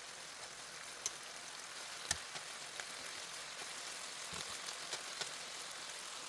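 Chicken thighs sizzling in hot oil in a pan as they sear, a steady hiss with light crackling and a few sharp pops, the loudest about two seconds in.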